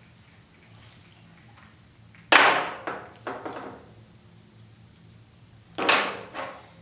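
Two sudden clattering knocks about three and a half seconds apart, each followed by one or two smaller knocks, as plastic toy play set pieces are handled and set down.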